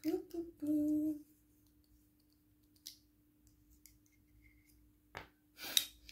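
A woman hums a short closed-mouth "hmm" twice in the first second or so. A few faint clicks and taps follow as a small plastic refillable perfume atomizer is fiddled with while she struggles to open it.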